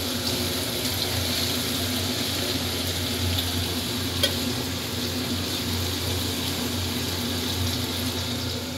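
Small kachki fish frying in hot oil in an aluminium wok, a steady sizzle as they are lifted out with a steel spatula. One sharp tap of the spatula against metal about four seconds in.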